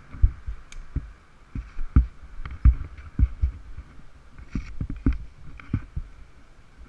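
Irregular muffled thumps and knocks of a helmet-mounted camera being jolted in its housing, over a faint steady hum from the 90cc ATV's engine.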